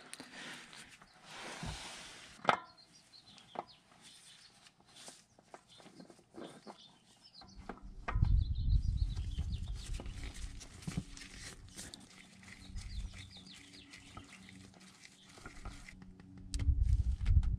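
Handling noise from a new spin-on oil filter being fitted by gloved hands: scattered light clicks and knocks, with louder low rubbing about eight seconds in and again near the end as the filter is threaded onto its mount.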